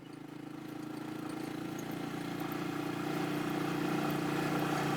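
A motor vehicle's engine running at a steady pitch, growing gradually louder.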